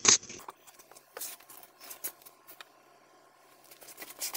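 Scattered light clicks and rustles of hands working in a car's engine bay, over a faint steady hum. A brief louder sound comes at the very start.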